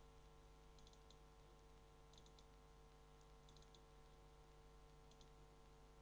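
Near silence over a steady faint hum, with about four small groups of faint computer-mouse clicks spread through it.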